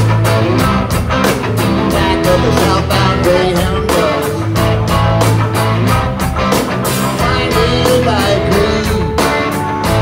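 Live rock band playing: electric guitars, bass guitar and drums with a steady beat, heard from within the crowd.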